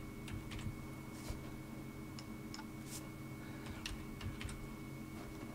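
Scattered, irregular clicks of a computer keyboard and mouse as numbers are typed into a settings field, over a faint steady hum.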